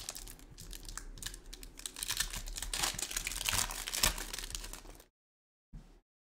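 Topps Chrome Formula 1 foil trading-card pack crinkling in the hands as it is torn open, a dense run of small crackles, loudest around four seconds in, that stops about five seconds in.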